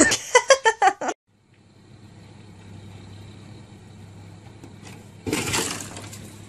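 A person's voice, shouting or laughing for about a second. Then a low steady hum, and near the end a harsh crunching, scraping burst of noise lasting about a second.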